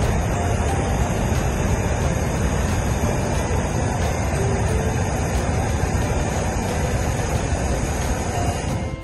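Hot air balloon's propane burner firing steadily into the envelope, a continuous loud rushing that holds without a break.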